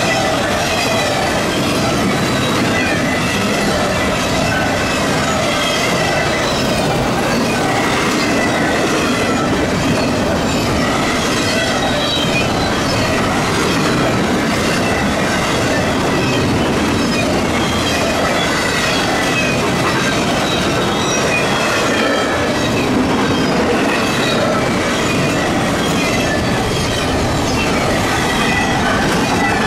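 Double-stack intermodal container cars of a fast freight train passing close by: steel wheels rolling and clacking over the rail joints in a steady, even rhythm.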